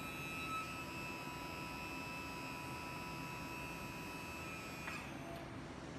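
Easy Lift ER roll manipulator's DC electric motor running with a steady, high whine as the clamp head rotates, cutting off about five seconds in.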